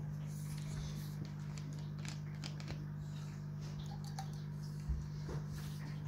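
A steady low hum, with faint clicks and taps and a soft thump about five seconds in as a plastic bottle and measuring jug are handled on a cloth-covered table.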